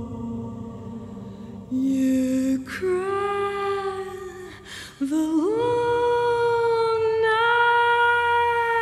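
Background music: a voice singing slow, long-held notes. About five seconds in it slides up into one long high note.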